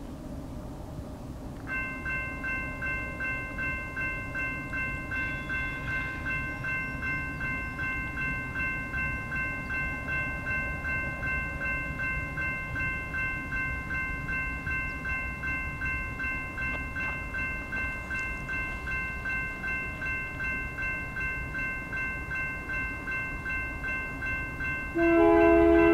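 Grade-crossing warning bell starts about two seconds in and rings on steadily in quick, even pulses. Near the end the approaching BNSF GE C44-9W locomotive sounds its air horn, a loud chord that drowns out the bell.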